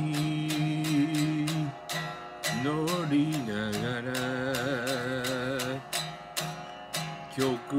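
A man singing to his own strummed electric guitar, the strums falling in a steady rhythm. Partway through, his voice rises into a long, wavering held note.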